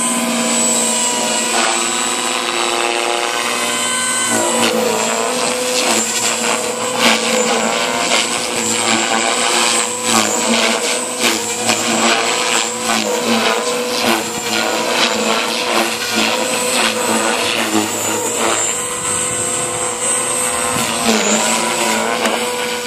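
JR Forza 450 electric radio-controlled helicopter flying aerobatics: a steady motor and rotor whine with blade noise that keeps rising and falling in pitch and loudness as the collective pitch swings between +10 and −10 degrees.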